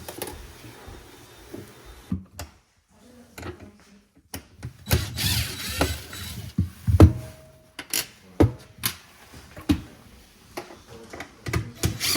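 Irregular clicks, knocks and thuds of tools and panels being handled while a refrigerator is taken apart, with a stretch of scraping about five seconds in.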